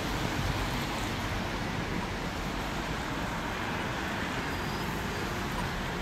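Road traffic on a wet surface: cars driving through the junction with their tyres running on the soaked tarmac, over a steady noise.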